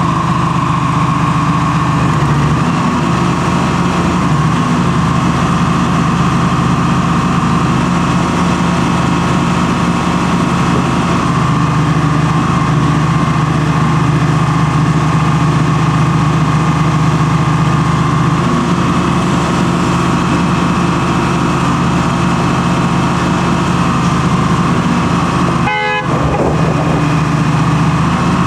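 1979 Bantam C-366 excavator's diesel engine running steadily under hydraulic load as the boom, arm and thumb bucket are worked, a constant engine drone with a steady higher whine over it. There is a brief sharp break about 26 seconds in.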